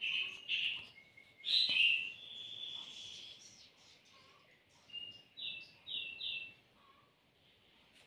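Lovebird chirping while held in the hand for medicine drops: short high chirps, a louder call with a longer held note about two seconds in, then three quick chirps in a row near the end.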